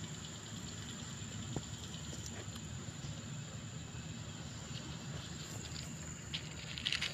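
A cat crunching dry kibble, faint scattered clicks of chewing over a steady background with a thin high tone, the clicks coming a little more thickly near the end.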